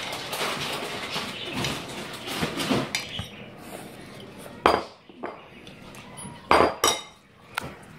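Metal fork scraping and scooping around a bowl of noodles, then several sharp clinks of the fork against the bowl in the second half.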